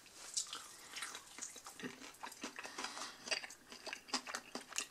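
Biting into and chewing a breaded fried chicken wing: quiet mouth sounds of the crisp coating crunching in many small irregular crackles.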